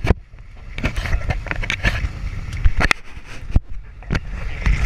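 Wind buffeting the microphone and water rushing and splashing against the hulls of a Nacra 14 catamaran sailing fast in strong wind, with many irregular knocks and thumps.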